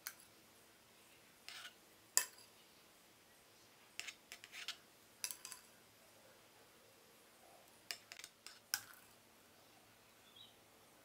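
A metal spatula spreading and smoothing frosting on a cake, giving faint, scattered short clicks and scrapes, some single and some in quick clusters of three or four.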